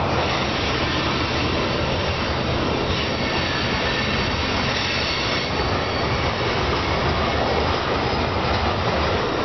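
Covered hopper cars of a freight grain train rolling steadily past, with a continuous rumble and clatter of steel wheels on rail. A faint high wheel squeal comes in about three seconds in and fades a couple of seconds later.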